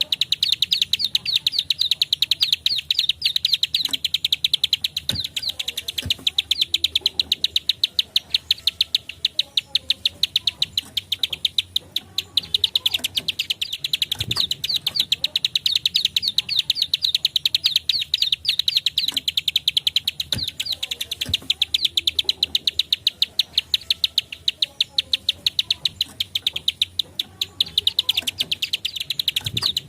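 Plain prinia (prenjak klik / ciblek sawah) giving its dry "klik-klik" call, many clicks a second in long rapid runs broken by brief pauses.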